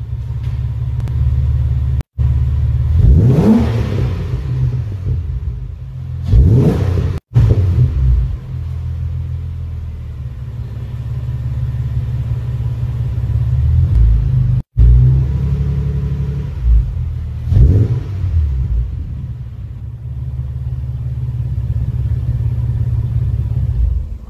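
Ford XR6's non-turbo inline-six running through a DEA 2.5-inch mandrel-bent catback exhaust with a hotdog centre muffler. It idles and is blipped three times to higher revs, each rising and falling back. Short clips are cut together with brief gaps.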